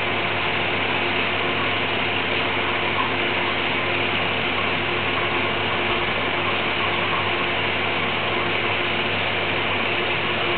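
A machine running steadily: a constant hiss with a low hum and a few steady tones.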